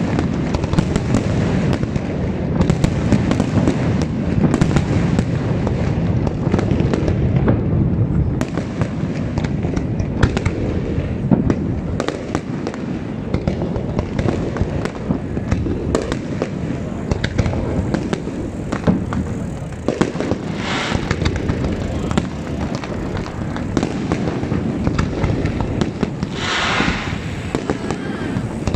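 Fireworks going off in a continuous barrage: a dense run of irregular cracks and bangs over a low rumble, with a brief hiss about twenty seconds in and another near the end.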